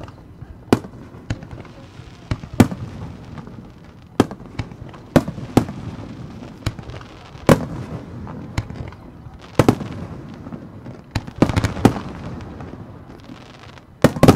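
Aerial firework shells bursting: a string of sharp bangs at irregular intervals, roughly one a second, with a low rumble between them. A quick run of cracks comes near the end, followed by the loudest burst.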